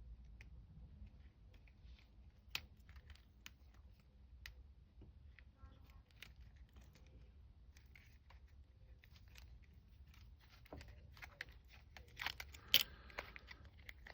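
Wrapping being picked and torn off a small key by hand: faint scattered clicks and crinkling tears, growing louder and busier near the end.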